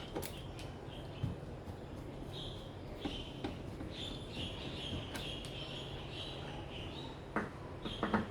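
Scattered small clicks and knocks of a screwdriver working screws out of an air conditioner's control box, the loudest few near the end, over a steady low hum, with faint high-pitched chirps in the middle.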